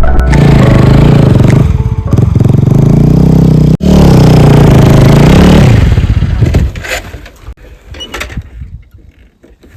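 Vehicle engine running loudly, its pitch rising and falling. It breaks off sharply about 4 seconds in, resumes, and then drops away after about 6 seconds to a much quieter patchy rustle.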